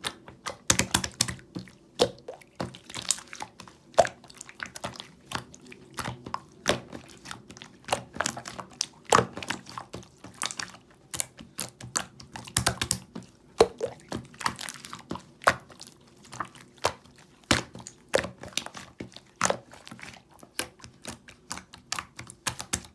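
Glitter slime being squished and pressed by hand, giving irregular sticky clicks and small air-bubble pops several times a second.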